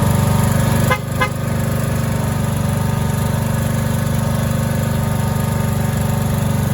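An engine running steadily with a fast, even pulse. It dips briefly about a second in, with two short high chirps.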